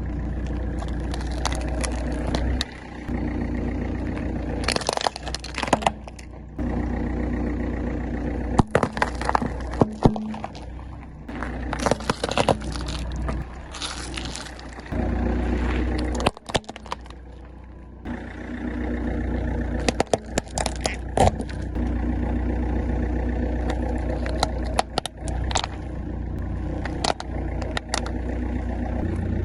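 Car tyres rolling slowly over crunchy objects, crushing them with many sharp cracks and snaps over the low running of the car's engine.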